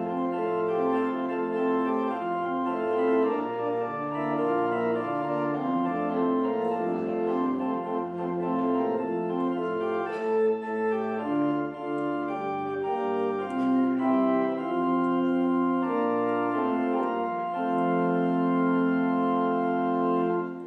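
Organ playing slow, sustained chords as a postlude after the benediction; the last chord is held for a few seconds near the end and then cuts off.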